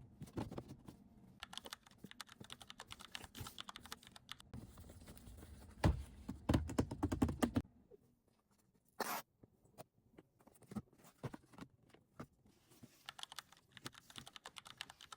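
Unboxing handling of a smart-glasses box and its packaging: a run of small clicks, rustles and scrapes, busiest in the first half. There is a louder stretch of handling about six to seven and a half seconds in, and one short burst near nine seconds.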